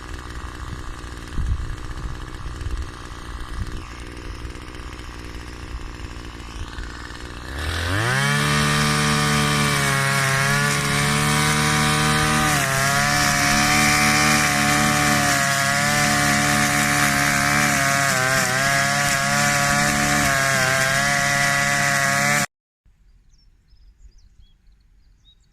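Two-stroke brush cutter engine: a lower, uneven running at first, then about seven seconds in it revs up quickly and runs steadily at high speed for about fifteen seconds while cutting grass, stopping abruptly near the end.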